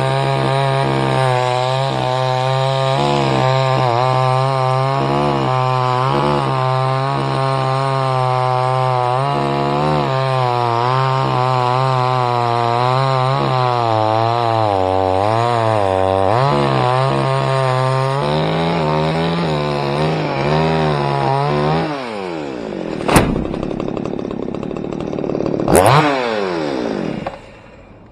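Two-stroke chainsaw cutting through a palm trunk under load, its engine note wavering in pitch as the chain bites. About 22 seconds in the engine note falls away, followed by two sharp knocks and a brief rev, then the sound drops off.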